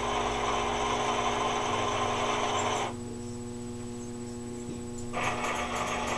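Emergency light bar's rotating lamp motors whirring over a steady electrical hum. One set runs and cuts off about three seconds in. Another starts about five seconds in, with a fast, even ticking.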